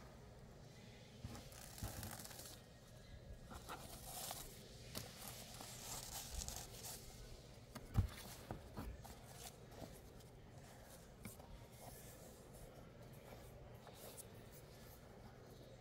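Faint rustling and handling of a cardboard gift box as its ribbon is untied and slid off: soft swishes and scrapes of ribbon and card, with one sharp tap about eight seconds in.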